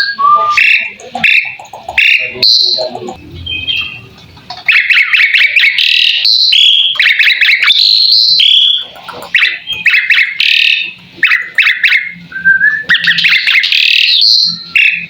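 Asian pied starling (jalak suren) singing a loud, varied song of rapid chattering notes, whistles and short mimicked phrases, in long runs broken by brief pauses.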